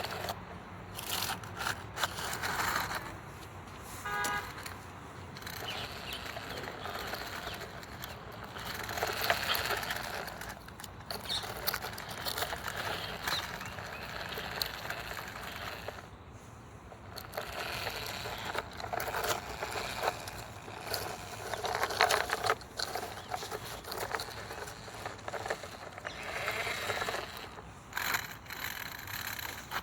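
Small toy remote-control car driving over rough ground: its wheels crunching and scraping unevenly, with scattered clicks and crackles.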